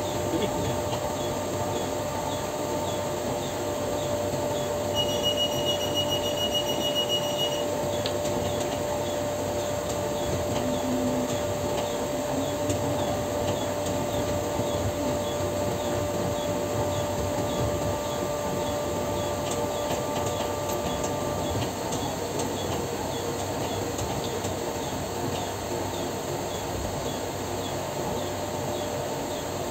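Steady machinery hum and drone, with a held tone that stops about 21 seconds in and faint ticking about twice a second. A pulsed electronic beep sounds for a couple of seconds about five seconds in.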